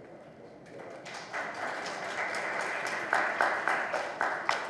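Audience applauding. The applause builds about a second in, with single sharp claps standing out in the second half.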